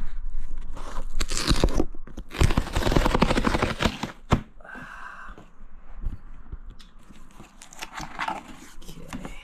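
Shipping packaging being torn open and handled: loud crackling and tearing for about four seconds, a sharp click, a short squeak, then quieter rustling.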